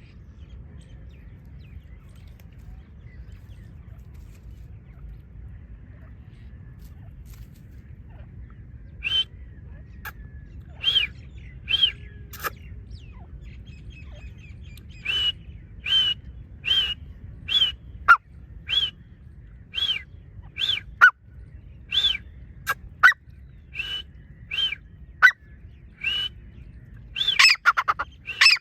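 Teetar (partridge) calling: from about nine seconds in, a series of short, sharp calls comes about once a second, ending in a louder, rapid flurry of calls near the end. A low steady rumble runs underneath, and before the calls begin it is all there is.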